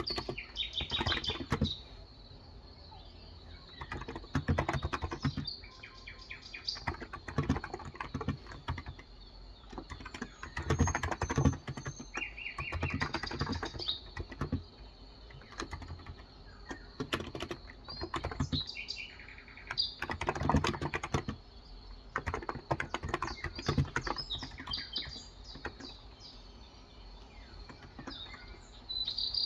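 Typing on a Cox Endeavour electro-capacitive (Topre-style) keyboard with light 35 g switches, in bursts of rapid keystrokes with short pauses between them. Birds chirp in the background.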